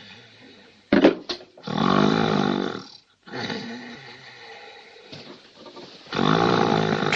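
A man snoring loudly: long, rattling snores, three in a row with the middle one weaker, and short splutters about a second in.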